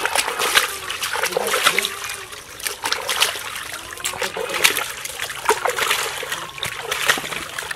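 Water splashed repeatedly by hand over a root-covered elephant foot yam as it is scrubbed clean, with many quick irregular splashes and trickling water.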